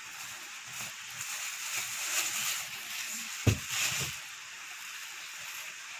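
Plastic shopping bags rustling and crinkling as they are handled and opened, with a dull thump about three and a half seconds in as a filled plastic bag is set down on the table.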